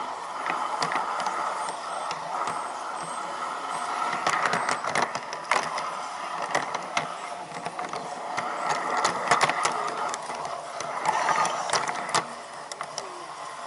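Garden-scale model train running along its track: a steady rolling rattle with many quick clicks as the wheels cross rail joints and switches.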